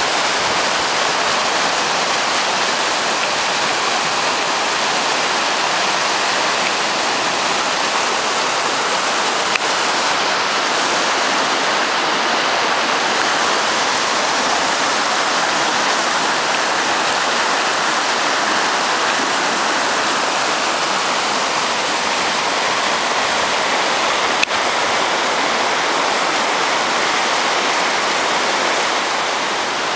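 Rushing whitewater of a river running high over rapids, with trees standing in the floodwater: a steady, loud, even rush of churning water.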